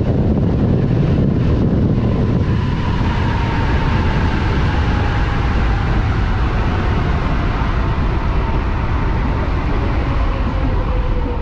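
A high-power electric motorbike at highway speed: heavy wind rush on the microphone and road noise, with the electric motor's whine slowly falling in pitch as the bike slows under regenerative braking.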